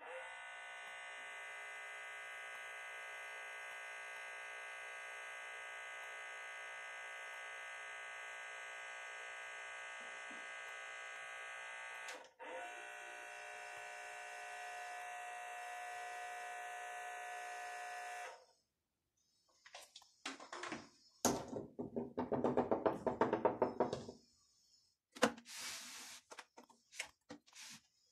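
A small motor inside a Samsung 3-disc mini hi-fi runs with a steady whine for about eighteen seconds, with one brief break, while the disc door stays shut. The owner puts this fault down to a torn door belt or broken gears. A few seconds of fast rattling clicks follow, then scattered knocks as the unit is handled.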